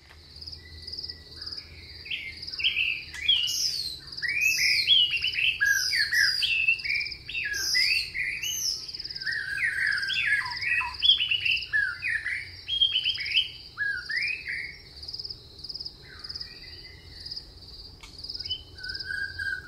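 A chorus of songbirds chirping and calling, many overlapping short notes, densest through the middle and thinning near the end, over a steady pulsing insect trill.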